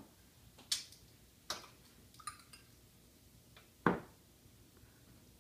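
A few scattered light clinks and taps of a small drinking glass and a measuring spoon being handled on a kitchen counter, with one louder knock about four seconds in.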